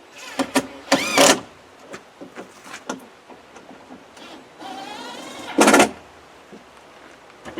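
Cordless drill-driver running twice to drive screws into the door, the motor whirring up briefly about a second in, then again for longer from about four and a half seconds, rising in pitch and loudest just before it stops.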